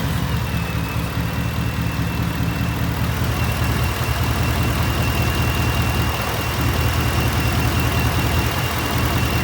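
Ford F-150's 5.0 L Coyote V8 idling steadily, freshly fitted with an oil catch can and being run to check for leaks, with a thin steady high whine above the engine hum.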